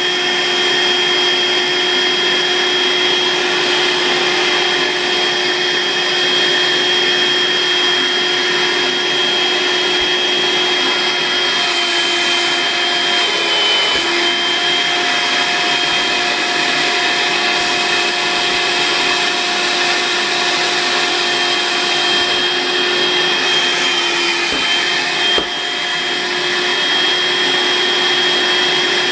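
Makita CL181FDRFW 18V cordless stick vacuum running steadily with a high motor whine, drawing the air out of a futon compression bag. Its pitch dips briefly about halfway through and again near the end, where it also goes slightly quieter for a moment.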